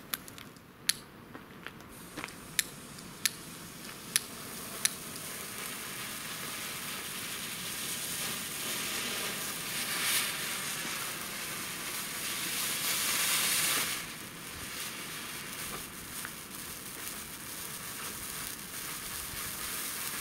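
Hand-held gold-and-silver rain firework burning, a steady crackling hiss of spraying sparks that builds over the first dozen seconds, drops suddenly about fourteen seconds in, and carries on. Seven sharp cracks come in the first five seconds.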